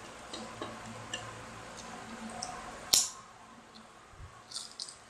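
Small scattered clicks and ticks of children eating fried chicken by hand, picking at the crispy coating, with one sharp click about three seconds in and a few short rustling hisses near the end.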